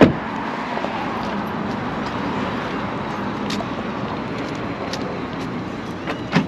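Steady road noise of a car driving, an even rushing hiss with no engine tone standing out. A single sharp click comes at the start.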